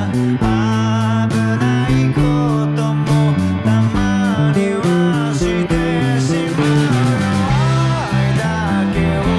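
Rock band music with electric guitars and a steady beat, and an electric bass played along, its low notes changing every half second or so under gliding guitar lines.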